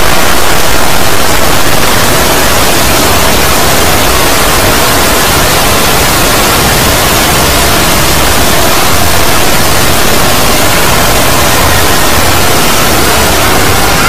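Extremely loud, distorted static-like noise, even and unbroken across the whole range at near full volume: a deliberately overamplified 'earrape' audio edit.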